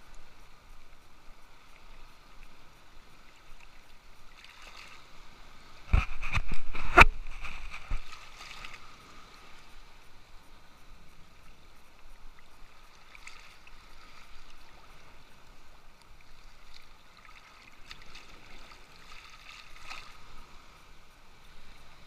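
Small sea waves lapping and sloshing close by, with a short loud burst of knocks and splashing about six seconds in.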